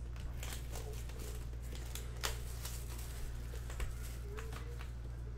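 Trading-card packs being opened and the cards handled: scattered crinkles of foil wrappers and light clicks of cards, over a steady low hum.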